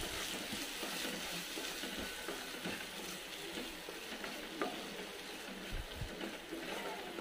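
A wooden spatula stirs and scrapes thick ground masala paste around a non-stick kadai, the paste sizzling steadily as it fries in the oil, with a few soft knocks of the spatula on the pan.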